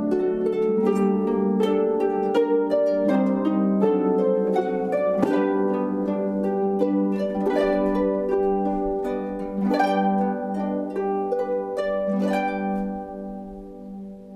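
Solo harp playing: plucked notes and chords ring on over a held low note, and a last chord dies away near the end, closing the piece.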